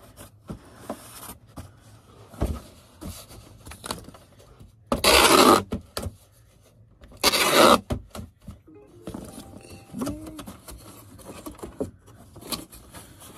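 Cardboard being folded and scraped by hand while a box is built. Packing tape is ripped off the roll twice, a long loud screech about five seconds in and a shorter one two seconds later.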